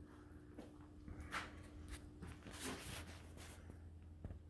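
Quiet room tone with a low steady hum and a few soft rustles or knocks.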